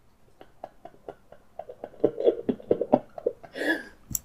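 A man's stifled laughter behind a hand over his mouth: a quick run of short breathy pulses that grows louder about halfway through and ends in a fuller burst of laughing. A sharp click comes just before the end.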